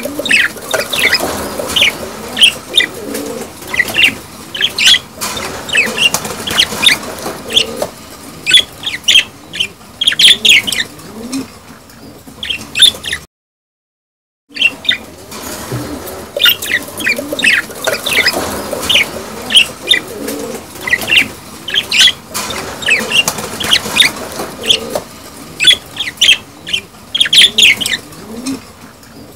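A group of budgerigars chattering in their mating calls: dense, quick high chirps and warbles overlapping each other. The sound cuts out completely for about a second near the middle and then resumes.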